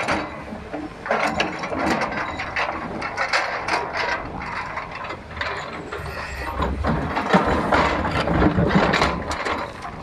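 Excavator working rocky ground: dense, irregular metal clanking, scraping and clattering of stones, with a low engine rumble that swells in the second half.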